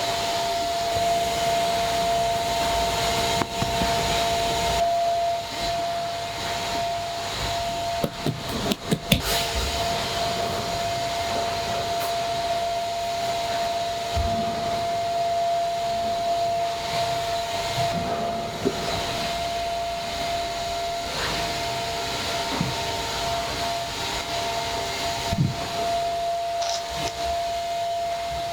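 Steady whirring of factory machinery with a constant high hum, and a quick cluster of clicks or knocks about a third of the way through.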